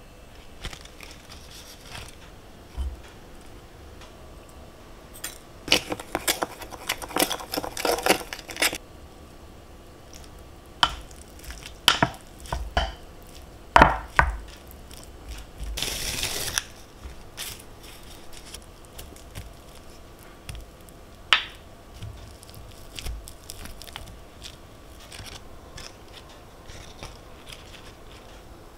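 Kitchen food-prep sounds: a run of quick knife chops on a cutting board, then scattered single knocks and a short rustle partway through.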